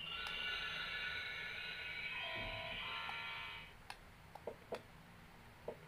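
Doc McStuffins toy stethoscope playing a buzzy electronic sound effect through its small speaker for about three and a half seconds, dropping to lower notes partway through before it cuts off. A few light plastic clicks follow.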